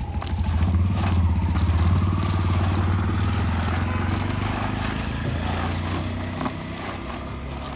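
An engine running, with a low steady hum that builds over the first two seconds and then slowly fades.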